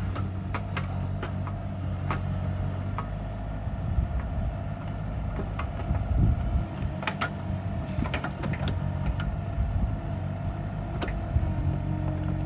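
Bobcat E37 compact excavator's engine running steadily with a steady high tone over its drone, broken by scattered sharp clanks and knocks as the machine works.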